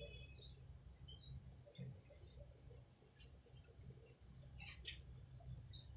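Faint background noise: a continuous high-pitched pulsing trill over a low hum, with a few short chirps scattered through.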